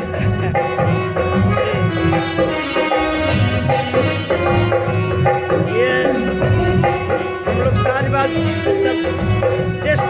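A jagran band's live instrumental music during a sound check: sustained melodic tones over a steady percussion beat with jingling, shaker-like hits.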